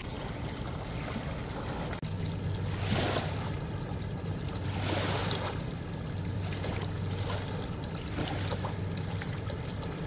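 Water running and trickling through a small sluice box in the river shallows. A steady low hum comes in about two seconds in, and water pours louder around three and five seconds in.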